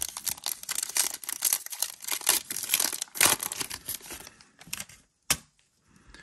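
Foil trading-card pack wrapper being torn open and crinkled by hand: dense crackling and tearing for about four and a half seconds, then quieter, with one sharp tick about five seconds in.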